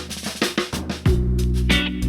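Band music starting up with a drum kit, a steady bass line coming in about a second in.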